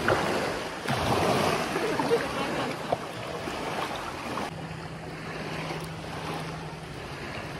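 Waves washing onto the shore, with wind buffeting the microphone; the wash eases after about four and a half seconds, when a steady low hum sets in.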